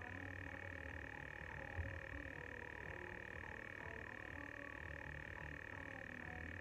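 Steady high-pitched whine over a low hum, the noise of a poor-quality recording. A faint dull knock comes about two seconds in.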